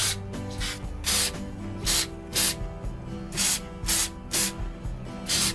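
Aerosol can of edible gold shimmer food spray being sprayed in short puffs, about nine in five seconds, over soft background music.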